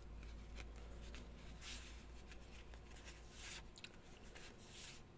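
Faint, soft swishes of Magic: The Gathering trading cards being handled and slid past one another, a handful of short strokes a second or so apart, over a faint low hum that stops near the end.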